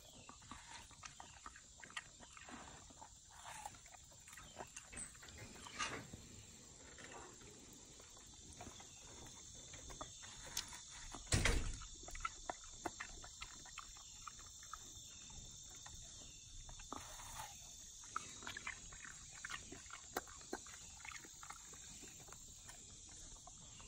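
A Belgian Malinois chewing and slurping a slice of watermelon: faint, irregular wet chomps and lip smacks, with one louder bite near the middle.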